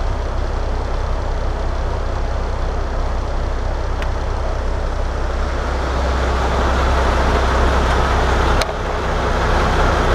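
MAN D2866LF inline-six turbo diesel truck engine running steadily at idle on its first run after a rebuild, with a steady low drone. It grows louder about two-thirds of the way through, and there is a sharp knock near the end.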